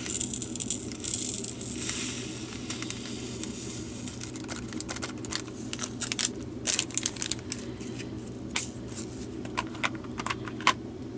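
Tiny resin diamond-painting drills poured from a packet into a small plastic container: a rattling hiss of the stream of drills for the first couple of seconds, then scattered light clicks as the last ones are tapped out.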